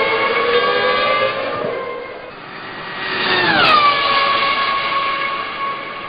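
McLaren MP4's 3.0-litre V10 Formula 1 engine at high revs, its pitch climbing slightly as it accelerates, then fading. About three and a half seconds in, a car passes close with a sharp drop in pitch and then holds a steady high note as it pulls away.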